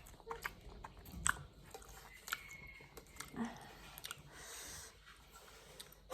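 A person chewing and biting food close to the microphone, with irregular sharp crunches.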